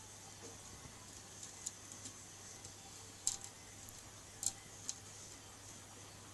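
Faint steady low hum and hiss of an aquarium, with several sharp clicks scattered through the middle, the loudest two about three and four and a half seconds in.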